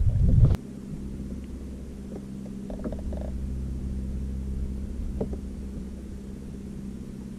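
A loud low rumble cuts off about half a second in. After it comes the steady low hum of a bass boat's bow-mounted electric trolling motor, with a few faint ticks.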